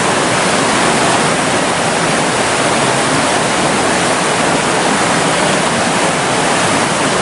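River water rushing over rocks in a shallow rocky rapid: a loud, steady rush.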